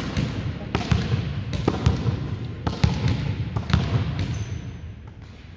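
A volleyball being hit or bounced: five sharp smacks roughly a second apart, growing fainter, over a low steady rumble.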